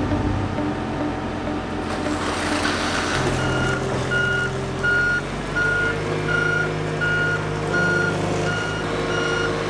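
Warning beeper of a boat travel lift sounding steady, even beeps, about three every two seconds, starting about three seconds in, over the steady hum of the lift's engine running. These are the alarm beeps that sound while the machine operates.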